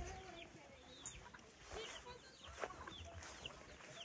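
Backyard chickens clucking softly, with many short, high, falling chirps.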